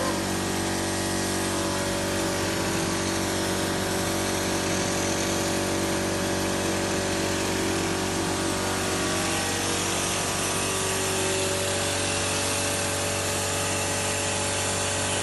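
Stone Hammer TX-450 texture sprayer running steadily together with its air compressor. Its peristaltic pump motor hums, with a hiss of compressed air over it.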